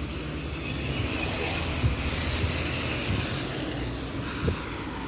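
Road traffic on a wet street: the tyre hiss of a passing car swells and fades over a steady low rumble.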